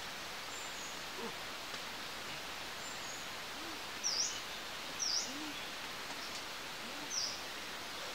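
Forest birds calling over a steady hiss: short high chirps that dip and rise in pitch, about four, five and seven seconds in, with a few faint low hooting calls between them.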